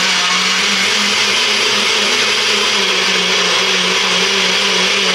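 NutriBullet personal blender running steadily, its motor spinning the blade through chopped tomato and cucumber and pureeing them into a smooth liquid.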